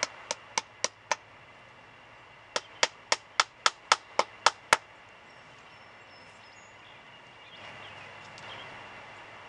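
Metal end of a beekeeping hive tool tapping small finish nails through the wooden wedge strip of a hive frame: a quick run of five sharp taps, then after a pause a run of nine at about four a second, the last one the loudest.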